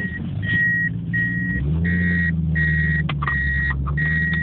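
An electronic warning beeper sounding a steady single-tone beep about one and a half times a second, over a car engine running that gets louder about a second and a half in.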